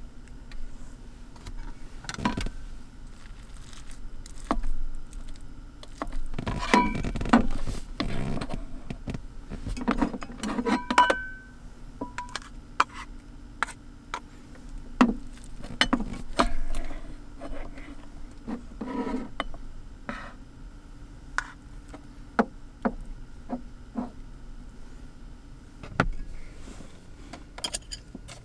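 Irregular knocks, clicks and a few light clinks of small objects being handled and set down in a small room, over a steady low hum.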